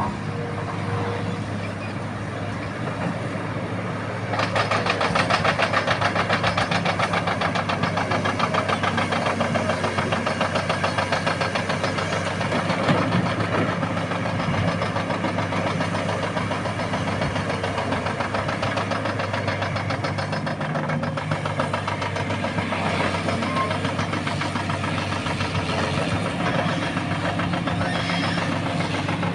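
Hitachi Zaxis 330 excavator's diesel engine running steadily; about four seconds in it gets louder with a fast pulsing note, as when the engine is put under working load.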